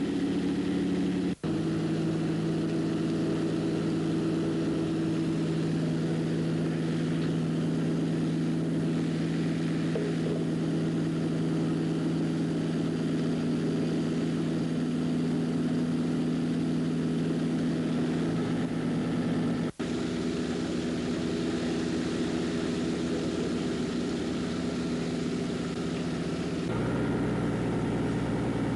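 Fire engine's motor running steadily, driving its pump to supply the hose lines, a constant hum with several held tones. The hum cuts out for an instant twice, and its tone shifts lower near the end.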